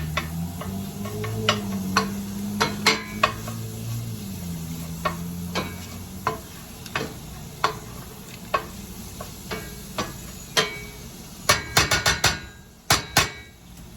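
A spoon stirring onions, garlic paste and red pepper flakes sizzling in olive oil in a pan, clicking against the pan about once or twice a second, with a quick run of taps near the end. A low hum sounds during the first few seconds.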